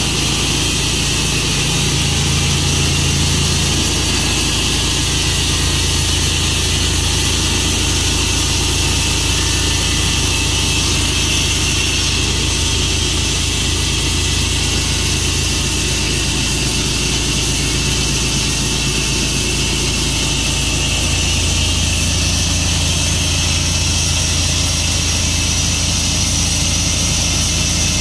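Tru-Cut sawmill's engine running steadily under a constant, unbroken drone.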